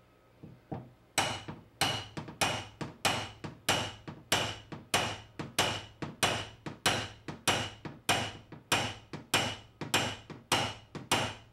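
Hammer striking a SlapperTapper dent tool held against the crown of a Mazda 3's thin door panel: a couple of light taps, then a steady run of about eighteen metallic strikes, a little under two a second, each with a short ring. The strikes vibrate the raised ridge of the dent down, paintless dent repair on a high spot.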